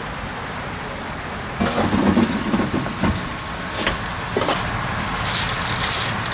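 A motor vehicle's engine over steady outdoor background noise, getting louder about one and a half seconds in.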